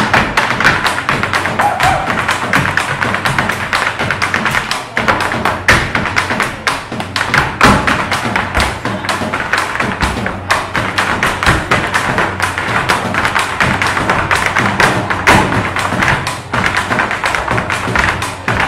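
Irish dancers' hard shoes rapidly tapping and stamping on a stage, in quick rhythmic runs, over music with a drum beat.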